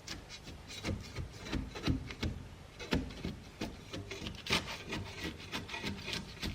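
Irregular scraping, rubbing and crackling clicks, a few a second, of a papery wasp nest being worked loose from wooden barn siding.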